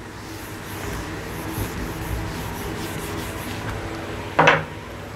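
Whiteboard duster rubbing across the board, wiping off marker writing, a steady scrubbing noise for about four seconds.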